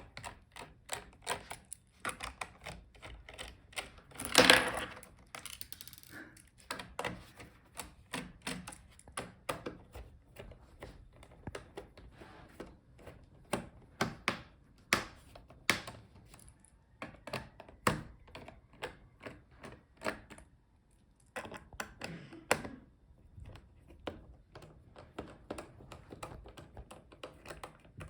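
Phillips screwdriver backing out the bottom-cover screws of a Dell G15 5535 laptop: irregular small clicks and taps of the tool and screws on the plastic case, with a louder half-second scrape about four and a half seconds in.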